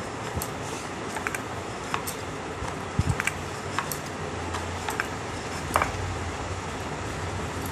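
Scattered light clicks and taps of hands working dough close to the microphone, with glass bangles on the wrist clinking, over steady background noise. A small cluster of taps comes about three seconds in and a sharper click near six seconds.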